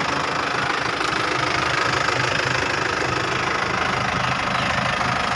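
Diesel engine of an Isuzu Elf NKR minibus idling steadily with its usual clatter.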